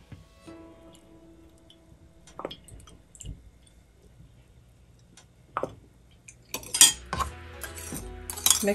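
A metal spoon clinking against a small glass bowl. There are a few scattered taps, then a quick run of clinks and scraping near the end as the spoon is worked in the sauce.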